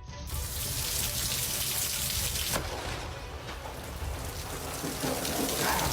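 Water noise: a steady, loud rushing hiss of heavy rain or pouring water, with a short voice exclamation near the end.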